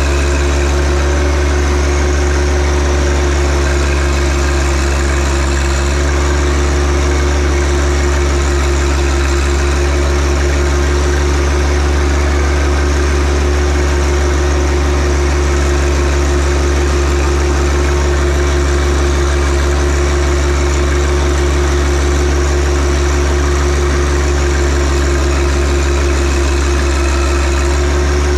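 John Deere 1025R compact tractor's three-cylinder diesel engine running at a steady, unchanging speed, loud and close.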